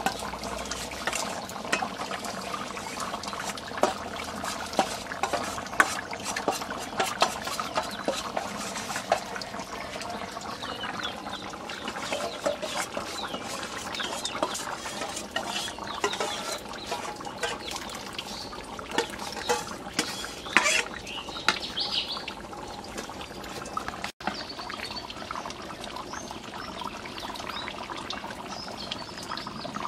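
Steel ladle stirring and scraping in a steel bowl of thin spice mixture, clinking sharply against the metal while the liquid sloshes. The mixture is poured into a pot of boiling curry. After a cut the curry is bubbling.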